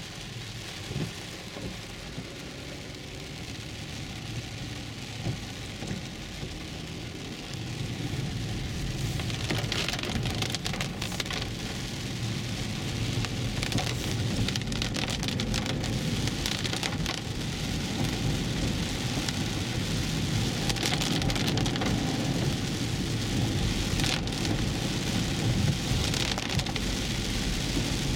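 Heavy rain falling on a 2011 Infiniti EX35, heard from inside the cabin as a steady patter and hiss on the roof and windshield, over the low rumble of its tyres on the wet road. The noise grows louder about eight seconds in.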